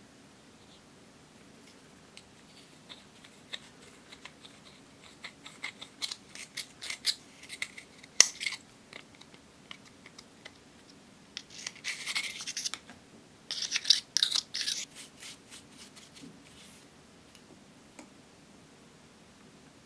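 Pressed blush powder being scraped and broken up in its plastic compact with a metal spatula: a string of dry scratches and clicks, heaviest in two bursts midway.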